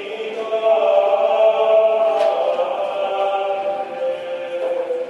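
Background choral music: several voices singing long held notes in a slow, chant-like style.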